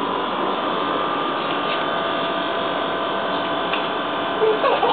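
Steady mechanical hum and whir with a few faint constant tones, unchanging throughout; a brief high voice-like sound comes near the end.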